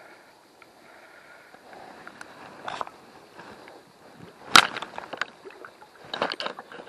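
River water splashing and sloshing over a steady rush of current, with irregular sharp splashes: the loudest about four and a half seconds in, then a quick cluster about a second later.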